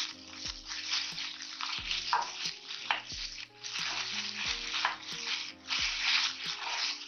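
Chopped onions and ginger-garlic paste sizzling in hot oil in a non-stick kadai while a steel slotted spoon stirs them, with a faint music track with a steady beat underneath.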